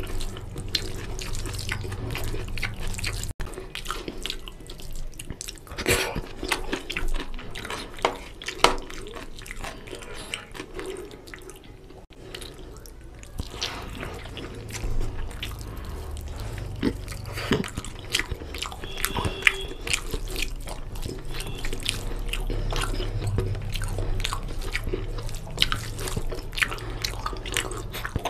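Close-up eating sounds: a bare hand squishing and mixing biryani rice with gravy and raita on a steel plate, with wet chewing and lip-smacking as mutton is bitten off the bone. Many short wet clicks over a low steady hum.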